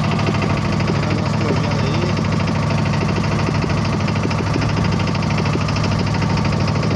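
Fishing boat's engine running steadily under way, with a fast, even knock from its firing strokes.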